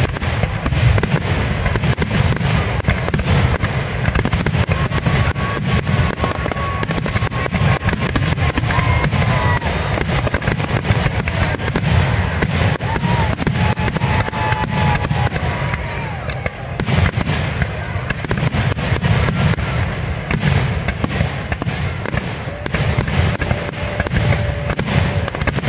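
A barrage of aerial fireworks shells bursting in rapid, overlapping succession, a near-continuous run of bangs and crackle with a brief lull about sixteen seconds in.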